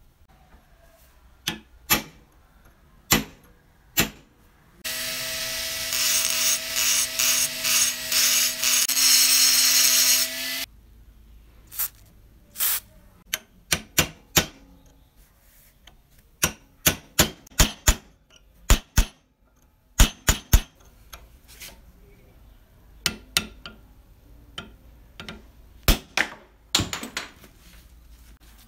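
Hammer striking a steel pin punch to drive the pin out of an antique meat grinder crank's wooden handle, the crank clamped in a vise: sharp single taps, irregularly spaced, a few before and many after a pause. For about six seconds, from roughly five seconds in, a small power tool runs with a steady whine.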